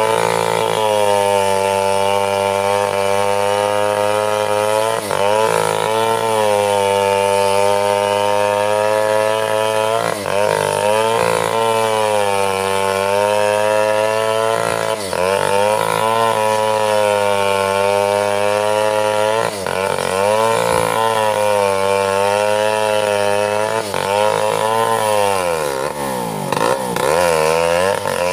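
Stihl chainsaw running near full throttle as it rips lengthwise through a mahogany log. The engine note sags briefly under load every few seconds, and dips longest and deepest about 25 seconds in before picking back up.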